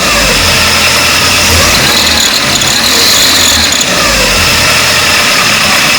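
Volkswagen AP 1.8 engine running with a steady high-pitched chirp, a 'grilo', coming from low on the engine; the mechanic takes it to be most likely a failing water pump.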